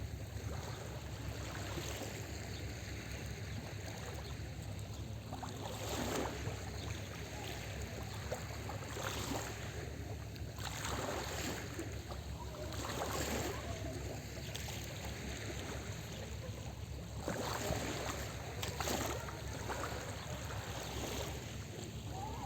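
Small sea waves breaking and washing onto the shore every few seconds, over a steady low rumble.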